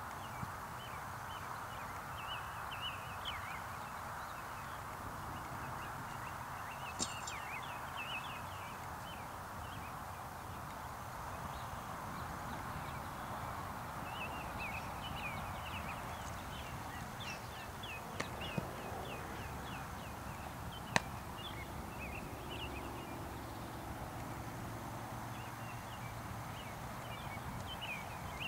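Steady outdoor background noise with birds chirping in runs of short, quick notes, and a few sharp clicks, one about a quarter of the way in and a few more in the second half.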